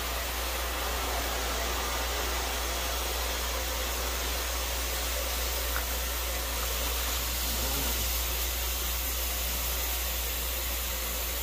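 Steady machine noise, an even whoosh with a low hum under it, unchanging throughout.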